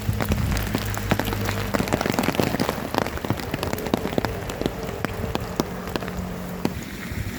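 Heavy rain falling on an umbrella overhead: a steady hiss with many separate drops striking sharply and close.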